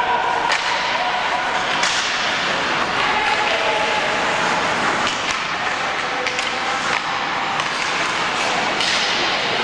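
Ice hockey game play in an arena: a steady wash of rink noise broken by several sharp clacks of sticks and puck, with voices calling out.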